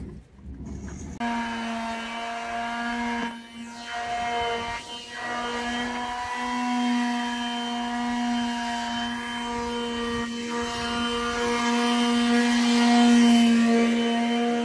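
Electric power tool motor starting about a second in and running at a steady speed, a constant whine that dips briefly about three times.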